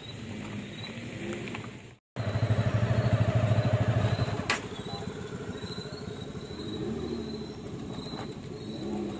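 Motorcycle engines idling close by, loudest for the two seconds after a brief cut-out about two seconds in, over a steady lower vehicle hum. Insects chirp in a regular high pulse throughout.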